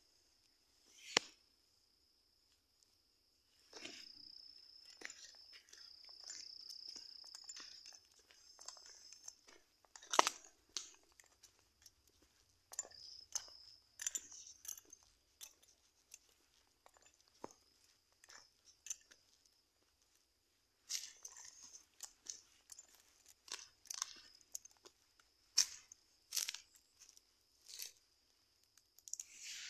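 Footsteps crunching on a dry, leaf-strewn dirt path, a run of irregular crunches and sharp clicks, over a steady high-pitched insect drone.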